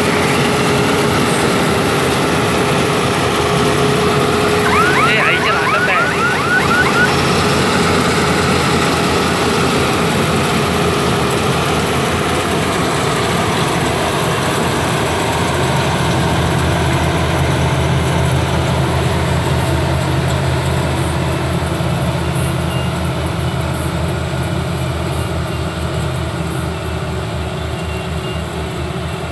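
PAL 977 combine harvester running steadily while it harvests, its engine hum joined by a steady whine from the machinery over the first ten seconds or so. A quick series of about eight rising chirps sounds about five seconds in. The machine grows a little quieter near the end.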